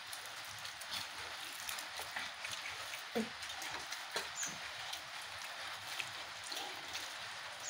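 Fingers squeezing and mixing boiled rice with fish curry on a steel plate: soft squishes and faint clicks over a steady hiss. A brief faint falling squeak comes about three seconds in.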